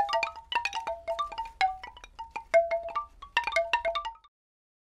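Logo sting of bright chime-like struck notes in a rapid, tinkling flurry, several a second at shifting pitches, each ringing briefly, cutting off suddenly a little after four seconds in.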